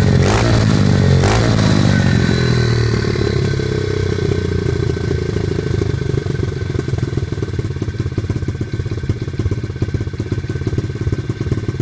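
Sohoo pit bike's single-cylinder engine, which has broken piston rings, is blipped twice near the start and then drops back to a steady, rhythmic idle about two seconds in.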